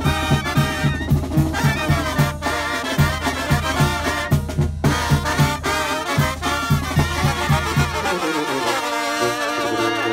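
Live brass band playing: trumpets and other horns carry the tune over a sousaphone and drum that keep a steady, quick beat. About eight seconds in, the beat stops and the horns hold long chords.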